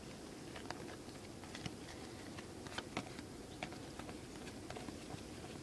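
Faint, irregular light clicks of baseball trading cards being handled and flipped through one at a time.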